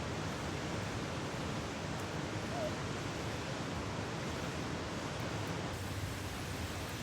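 Campfire burning with a steady rushing hiss and few distinct crackles.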